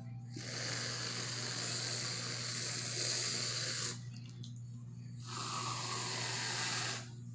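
Reddi-wip aerosol whipped-cream can spraying in two long hisses: about three and a half seconds onto a plate, then, after a short pause, nearly two seconds straight into the mouth with a slight falling tone.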